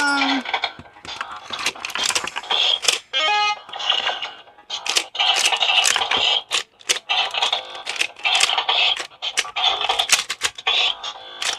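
Slide Twist electronic puzzle game playing its electronic music and beeping sound effects during a timed speed round. A falling run of beeps sounds about three seconds in, and sharp plastic clicks come as the blocks are twisted and slid.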